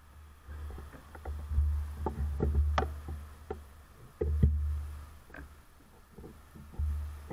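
Low rumbling buffets on a bike-mounted camera's microphone that swell and fade several times, with scattered short clicks and knocks.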